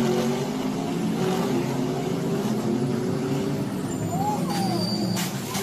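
Race car engines running on a street circuit, with a few sharp knocks near the end.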